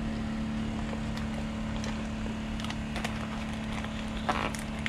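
A steady low hum in the background, with light clicks and rustles of cardboard and packed parts as a hand rummages in an opened box. A few sharper clicks come about four seconds in.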